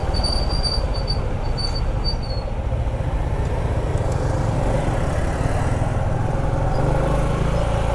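Motorcycle engine running at low speed in slow, stop-and-go road traffic, a steady rumble with surrounding vehicle noise. A thin high squeal comes on and off during the first two seconds or so.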